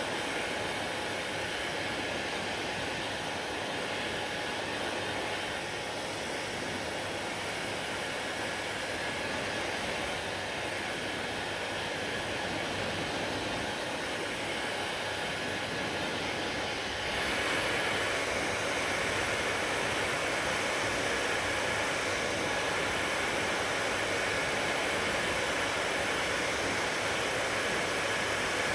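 Hair dryer blowing steadily, a continuous rush of air with a faint motor hum. About seventeen seconds in it steps up to a louder, brighter rush and holds there.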